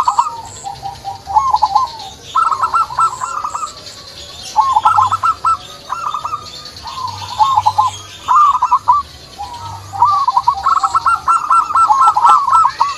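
Perkutut (zebra dove) cooing: repeated short phrases of quick, rolling notes, one after another, with several phrases running together near the end. Fainter high chirps sound in the background.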